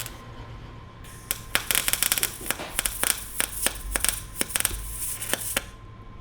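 Welding steel conduit onto an exhaust header: a run of irregular sharp crackles from the arc, starting about a second in and stopping shortly before the end.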